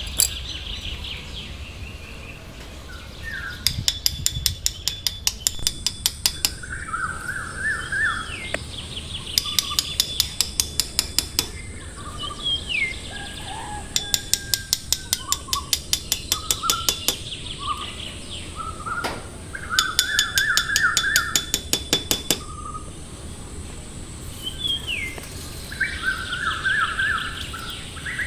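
Several birds chirping and calling, with short slurred notes and warbles. In four stretches of two to three seconds each comes a fast, even run of sharp clicking notes, over a low steady background rumble.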